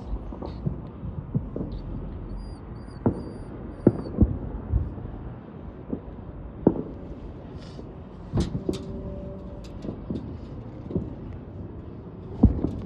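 Fireworks going off at a distance: a run of irregular booms and thuds over a low rumble, several close together at times, with the sharpest bangs about four seconds in, around eight seconds in, and near the end.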